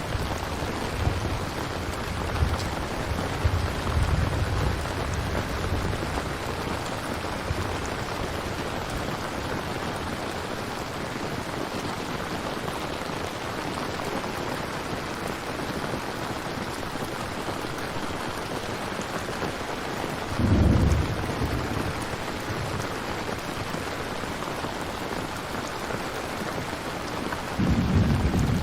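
Steady rain ambience with low thunder rumbles: one short, louder rumble about twenty seconds in and another building near the end.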